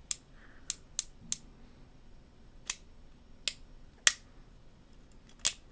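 Cimarron 1858 New Army single-action revolver in .45 Colt being worked by hand: about eight sharp metallic clicks at uneven intervals as its hammer and cylinder are operated, the loudest near the middle and near the end.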